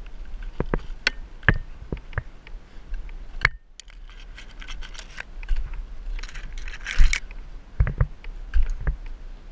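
Rope and rigging gear being handled at the top of a palm trunk: scattered sharp clicks and knocks, with scraping against the trunk's fibrous bark and a denser burst of scraping and rustling about six to seven seconds in.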